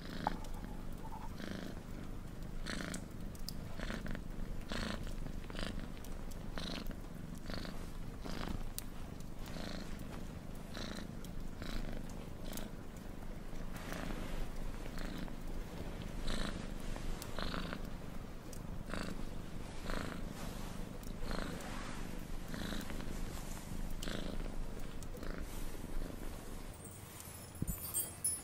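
Domestic cat purring close by, a steady low purr that swells and eases about once a second with each breath.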